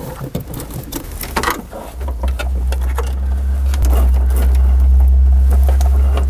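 Wire harness being handled and pushed through the engine bay, with scattered rustles, clicks and taps. From about two seconds in a steady low rumble rises and becomes the loudest sound.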